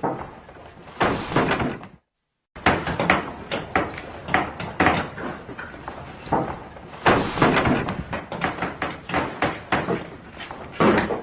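Carpentry workshop ambience: irregular knocks, thuds and clatter of wood and tools being handled, one after another. The sound cuts out completely for about half a second about two seconds in.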